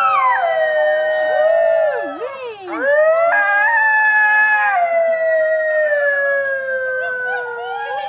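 A chorus of coyote-call howls from several voices at once: long held notes that slide slowly down in pitch, with a swoop down and back up about two to three seconds in and new howls joining just after.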